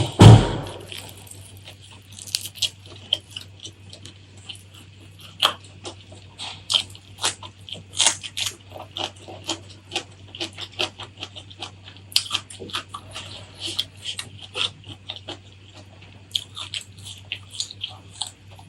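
Close-miked biting, crunching and chewing of crisp food, a dense run of sharp crunches and mouth clicks. It opens with one loud, low thump, and a faint steady low hum runs underneath.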